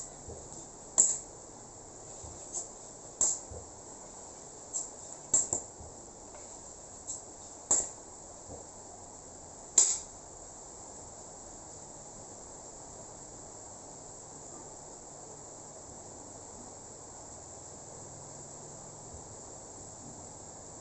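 Steady high-pitched insect chirring, like crickets, with about ten sharp clicks and knocks scattered through the first half, the loudest about one, five, eight and ten seconds in.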